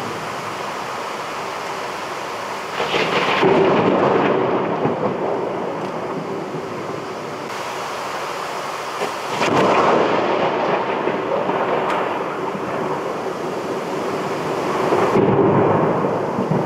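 Torrential thunderstorm rain pouring down in a steady loud rush. It swells three times, about 3, 10 and 15 seconds in.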